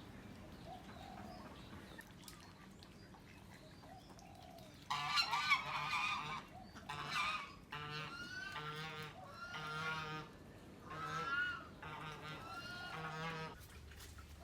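Geese honking: after a few seconds of quiet, a run of about eight loud, pitched honks follows in quick succession.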